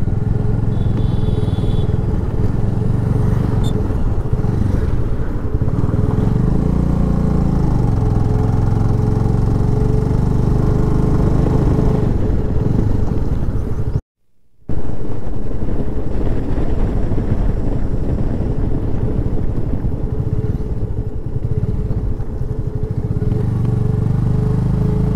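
Motorcycle engine running on the move, its pitch rising and falling with the throttle. The sound cuts out completely for about half a second a little past the middle.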